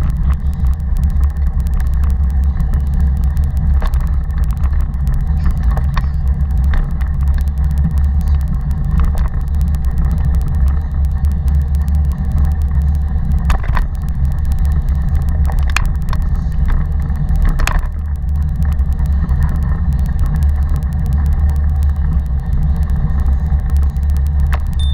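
Steady rumble of a moving Taga 2.0 cargo bike picked up by its front-mounted camera, heavy with low wind and ride noise. Scattered sharp knocks and rattles come through as the frame goes over bumps.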